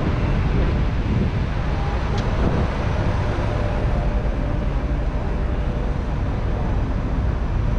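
Steady low rumble of traffic and vehicle engines, with wind buffeting the microphone.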